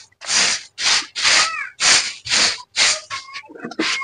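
Hand broom of long thin stiff stalks sweeping dust off an unpaved earthen courtyard floor: about seven quick swishing strokes, nearly two a second.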